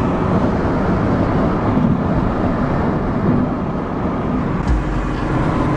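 Steady road and wind noise of a car travelling at freeway speed, heard from inside, with a deeper hum joining near the end.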